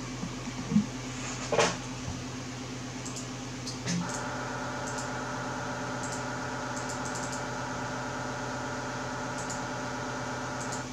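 A couple of sharp clicks, then about four seconds in a steady buzzing hum of several tones sets in and holds, from amateur radio station gear while it transmits an MSK144 meteor-scatter signal.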